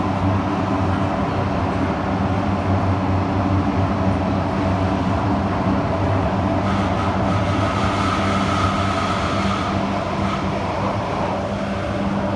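Kawasaki-CRRC Sifang CT251 metro train running at speed, heard from inside the car: a loud, steady, heavy rumble and pounding from its flat-spotted wheels on the rails. A thin high whine joins it for a few seconds around the middle.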